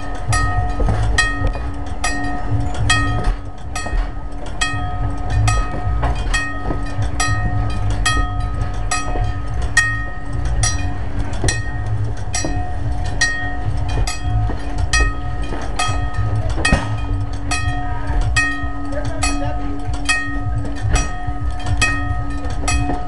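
Grade-crossing bell ringing steadily, about two strokes a second, while passenger coaches roll past with a low rumble of wheels on rail.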